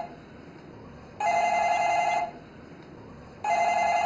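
Desk telephone's electronic ringer ringing in bursts of about a second, with a pause of about a second between them: an incoming call. One ring is ending as the sound begins, one full ring follows, and the next ring starts near the end.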